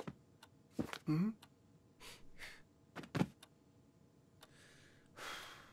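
Sparse cartoon sound effects: a short rising vocal grunt about a second in, a few soft clicks and rustles, and a breathy rush of noise near the end.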